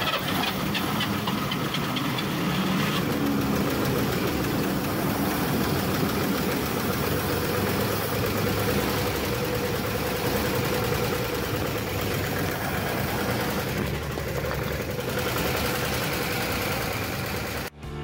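The straight-six engine of a 1947 Chevrolet pickup running steadily just after starting up for the first time after sitting more than ten years. It cuts off suddenly near the end.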